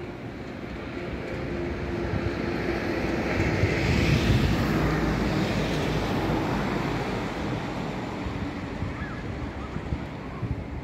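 Engine noise of something passing by, swelling to its loudest about four seconds in and then slowly fading, over a low rumble of wind on the microphone.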